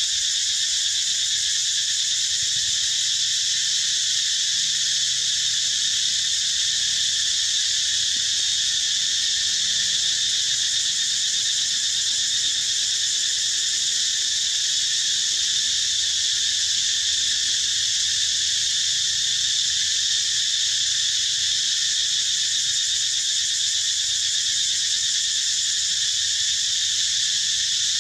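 Insect chorus: a steady, high-pitched drone that keeps on without a break.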